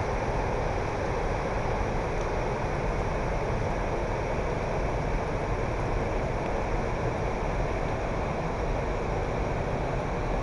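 Steady rushing roar of a wide, multi-tiered waterfall pouring over rock shelves.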